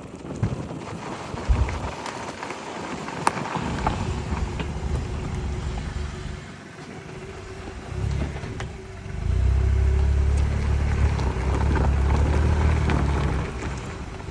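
Nissan Juke being driven: a steady low rumble with two sharp knocks about one and a half and three seconds in, the kind of knock the owner traces to the brake calipers once the car is warm. The rumble grows much louder for about four seconds in the second half.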